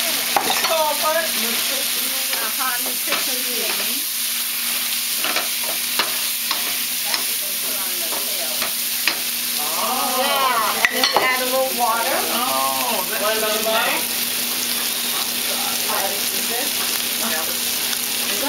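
Vegetables and a nutritional-yeast roux sizzling in a stainless steel sauté pan as a wooden spoon stirs them, with frequent short clicks and scrapes of the spoon against the pan.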